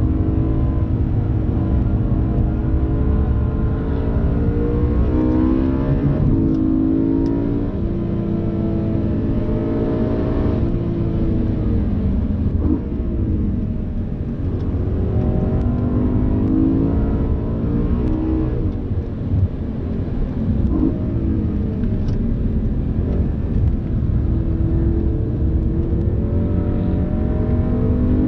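BMW M3 E92's V8 engine heard from inside the cabin at speed on track, revving up through the gears and dropping back several times on lifts and shifts, over road and wind noise.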